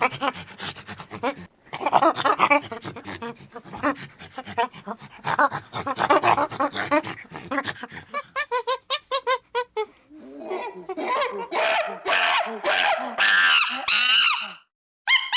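Monkeys calling: rapid, dense chattering and panting grunts, then a quick run of short calls at about seven a second, then from about ten seconds in a string of long, wavering high-pitched screeches.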